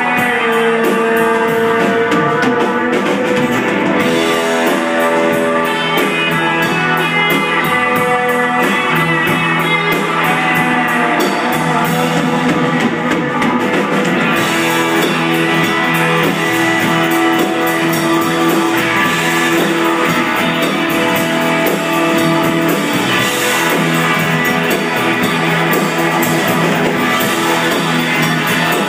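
Live rock band playing: electric guitars and bass over a steady drum beat with regular cymbal hits.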